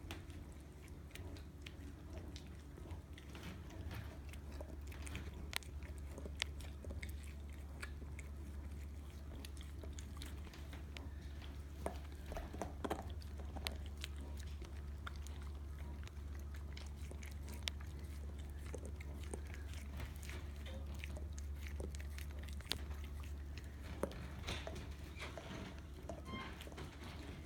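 A dog mouthing and licking at a hand: many soft, scattered wet clicks of chewing and licking over a low, steady hum.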